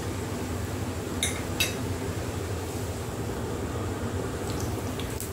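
A steady low hum, with two light clinks of a steel knife and fork against a glass plate a little over a second in.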